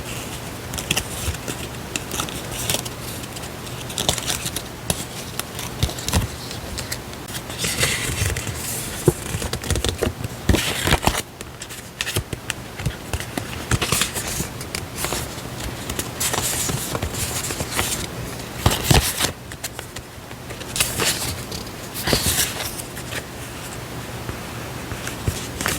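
Stationery items being handled up close: paper and packaging rustling and crinkling, with irregular scrapes, taps and clicks.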